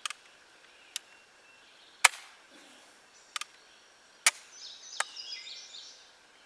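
Flintlock pistol lock snapping repeatedly without firing: about seven sharp clicks roughly a second apart as the cock is drawn back and released onto the frizzen, a misfire. Faint bird chirps come in midway.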